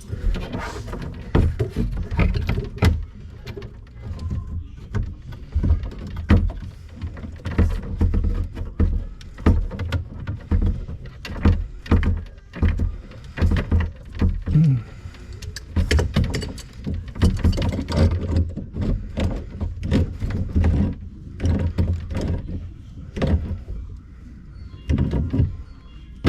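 Irregular knocks, clunks and clatter of hoses and fittings being handled and fitted under a kitchen sink, over a low rumble of handling noise.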